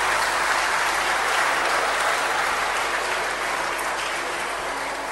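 Audience and players applauding, a steady clapping that eases off slightly toward the end.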